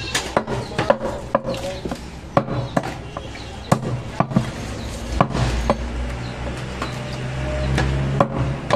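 Over a dozen sharp knocks and chops on a wooden butcher's chopping block as goat meat is cut and handled, spaced unevenly. A low hum sits underneath and grows louder in the second half.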